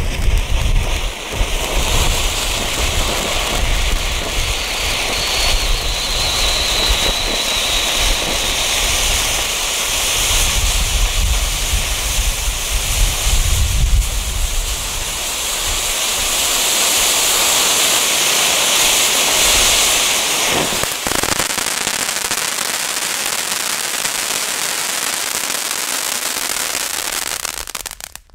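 Two small firework fountains burning side by side, giving a steady, loud hiss of spraying sparks. There is a low rumble under the hiss in roughly the first half.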